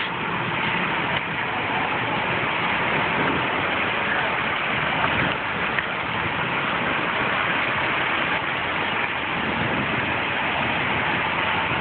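Steady rush of rain and running floodwater over a street.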